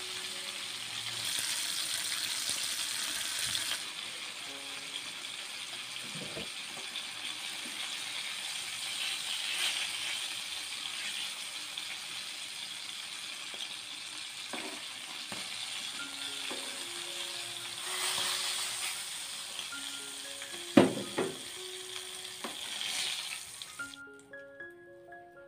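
Salted fish sizzling in hot oil in a frying pan, with a few sharp knocks of metal tongs against the pan as the fish are turned and lifted. Light mallet-percussion background music plays throughout. The sizzling cuts off suddenly near the end, leaving only the music.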